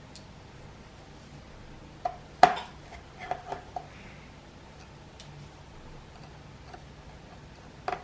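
A few sharp clicks and taps of small hand tools and screws on a hard work surface during tablet disassembly: a cluster of five or so between about two and four seconds in, the loudest near two and a half seconds, and one more at the very end.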